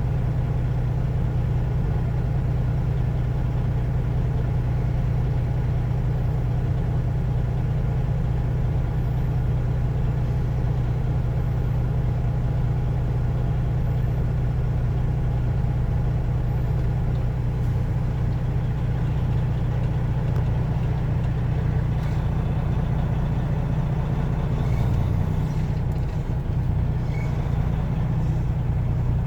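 Vehicle engine running steadily, a low even hum.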